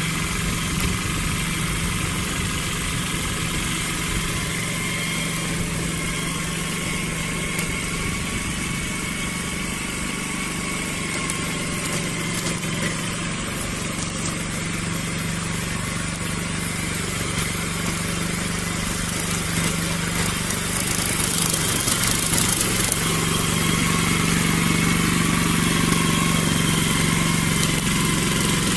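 Small engine of a grass cutter running steadily, getting somewhat louder about two-thirds of the way through.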